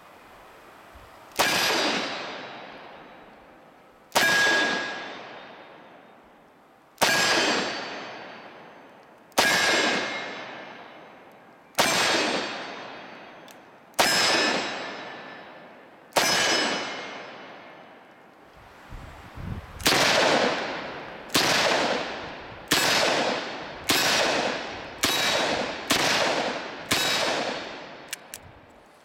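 Taurus 627 Tracker .357 Magnum revolver with a ported barrel being fired: seven shots about two and a half seconds apart, then seven quicker shots about a second apart, each report ringing out in echo.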